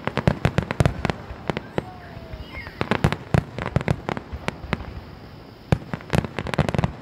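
Aerial fireworks shells bursting: a rapid string of sharp bangs in three dense clusters, one at the start, one about three seconds in and one about six seconds in, with quieter gaps between.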